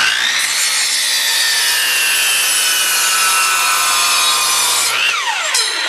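Ryobi 10-inch miter saw running at full speed as its blade is pulled down through a wooden board. About five seconds in the motor is switched off and its whine falls away as the blade spins down.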